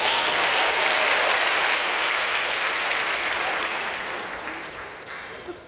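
Audience applauding. It swells in quickly at the start and tapers off over about five seconds.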